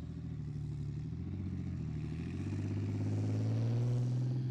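Challenger 2 tank's V12 diesel engine running as the tank drives closer, growing louder with its engine note rising slightly until about four seconds in.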